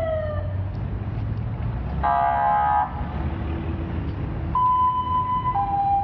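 Street traffic rumbling, with a siren gliding down in pitch at the start, a short vehicle horn blast about two seconds in, and a two-note tone stepping from high to low near the end.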